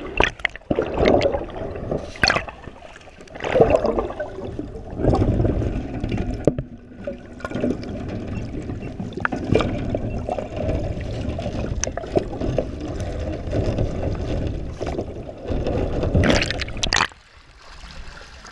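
Muffled underwater water noise: churning, gurgling water and bubbles with several sharp knocks against the metal shark cage. Near the end a louder splashing burst comes, then the noise drops away suddenly as the recording comes up out of the water.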